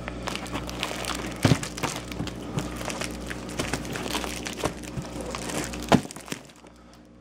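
Rustling and crinkling with many small clicks and knocks as packages are handled, dying down about six seconds in.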